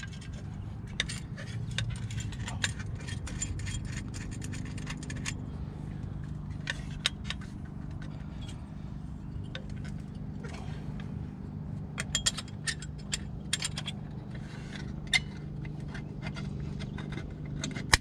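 An aluminium caliper cover being fitted by hand over a six-piston Brembo brake caliper: scattered scrapes and light metallic clicks and clinks as the cover and its small retainer clip hardware are worked into place, with one sharp click right at the end.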